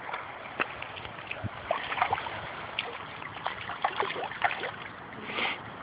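A hooked fish splashing and thrashing at the water's surface as it is reeled in to the bank, with irregular sharp ticks and splashes throughout.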